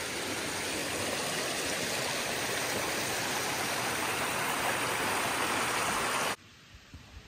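Shallow mountain stream rushing over rocks, a steady rush of water that cuts off suddenly near the end.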